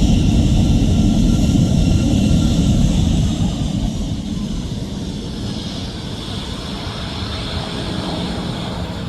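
Boeing 777-200ER's twin jet engines at takeoff power during departure, a loud low rumble with a high fan whine that eases off about three seconds in as the jet moves away.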